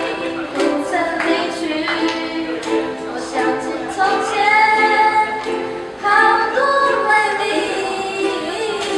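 A group of voices singing a slow song together over strummed ukuleles.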